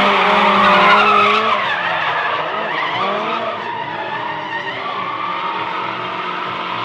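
Drift car engine revving hard, its pitch rising and falling with the throttle, over the screech of rear tyres sliding. Loudest for the first second and a half, then somewhat quieter.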